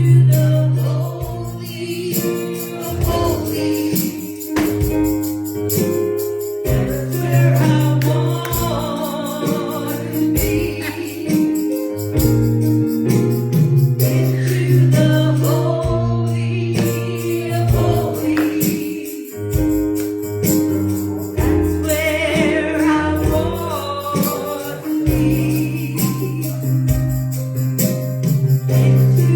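Live gospel worship music: voices singing a melody over sustained low instrumental notes, with steady percussion hits throughout.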